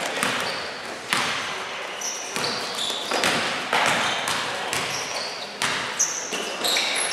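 Basketball being bounced on a gym court, with short high sneaker squeaks on the floor.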